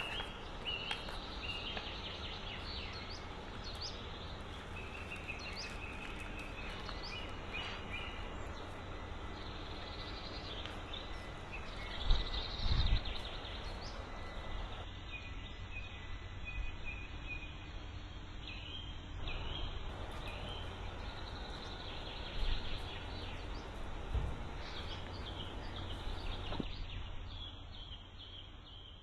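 Outdoor ambience of small birds chirping over a steady low hum, with a few dull thumps about twelve seconds in and a couple more later.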